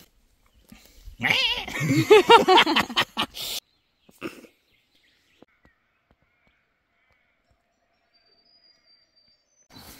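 Dog whining excitedly in a quick wavering run of high cries lasting about two seconds.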